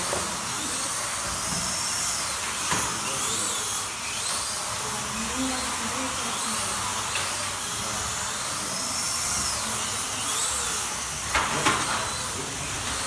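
Small electric motors of slot cars whining as they race around the track, pitch rising and falling again and again as the cars speed up and slow down. A few sharp clicks, the loudest near the end.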